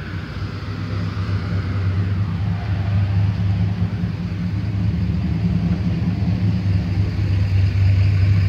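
A motor vehicle's engine running at a steady idle: an even low hum that grows gradually louder.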